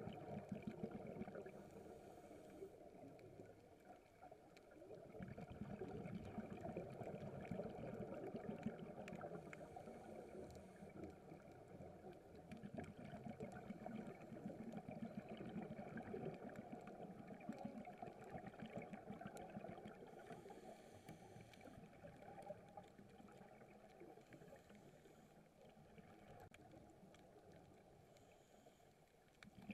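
Muffled underwater sound heard through a camera's waterproof housing: a dense, low crackle and swish of moving water that slowly swells and fades.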